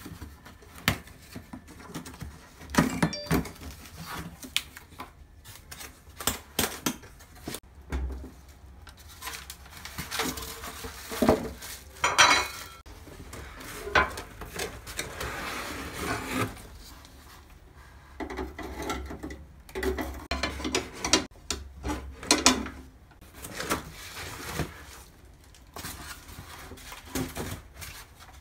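Scattered knocks, clinks and rustling from unpacking a raclette grill: its stone slab and metal grill parts are handled, lifted out of a cardboard box and set down on a wooden table.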